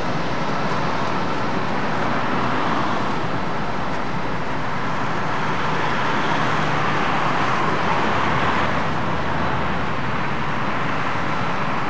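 Jet noise from an Airbus A380's four turbofan engines as it touches down and rolls out along the runway: a steady rushing noise with a faint high whine.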